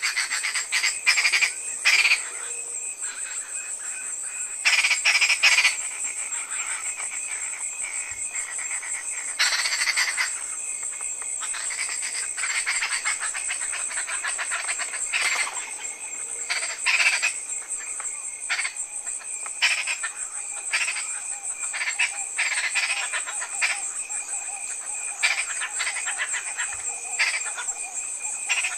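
A chorus of frogs and insects: a steady high-pitched insect trill with short croaks coming often and irregularly over it.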